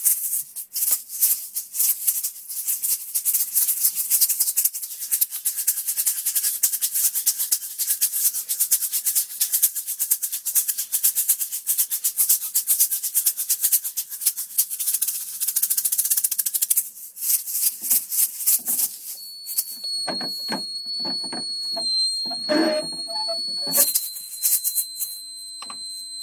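A hand-held shaker rattled rapidly and steadily in rhythm. About two-thirds of the way through the shaking breaks off and a steady high-pitched tone sounds for a few seconds, then the shaking picks up again just before the end.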